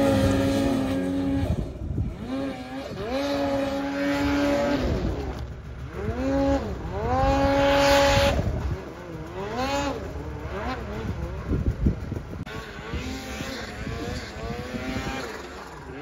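Snowmobile engine revving hard: its pitch climbs, holds high for a second or two and drops back, three times over, then rises and falls in shorter bursts.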